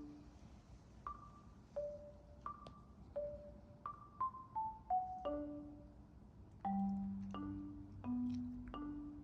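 Background music: a light, plinking mallet-percussion melody of single struck notes with short decays, a few notes a second.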